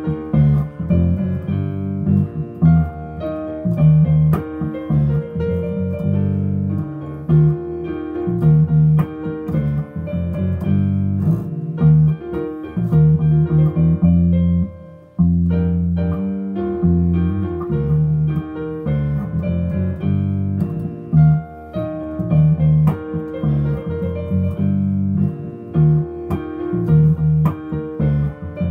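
Piano and headless electric bass guitar playing a pop tune together, the bass notes full and prominent under the piano's chords and melody. The music drops out for a moment about halfway through, then carries on.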